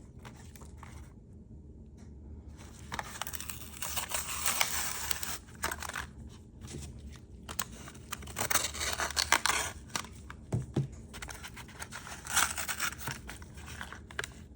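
A Hot Wheels blister-card package being opened by hand: card tearing and plastic crinkling in a few noisy bursts, with small clicks and scrapes between them.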